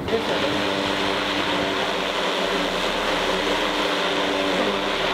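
Large DJI quadcopter drone flying overhead: a steady propeller buzz with several steady whining tones, cutting in suddenly at the start.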